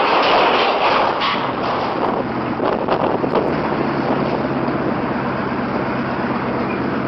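Wind rushing and buffeting over the microphone, with a steady low hum coming in about a second and a half in.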